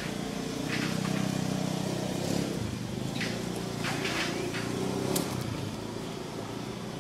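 A motor vehicle engine running steadily, a low hum that swells about a second in and fades toward the end, with a few short, high sounds scattered over it.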